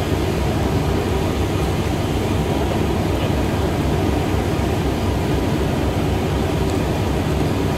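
Steady low rumble of a standing train's diesel engine idling.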